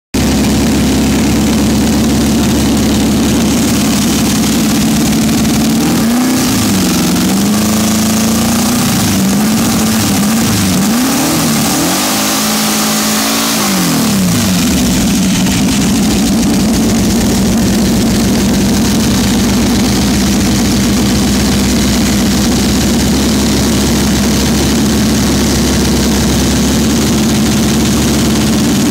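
Turbocharged air-cooled VW Type 1 flat-four drag engine (Geers build with roller cam and draw-through Holley carburettor) idling steadily and loudly. From about six seconds in, the throttle is blipped several times, so the engine speed rises and falls for several seconds before it settles back to a steady idle.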